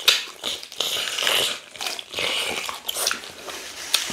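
Close-miked eating sounds of two people biting and chewing meat and fufu with ogbono soup, in irregular bursts.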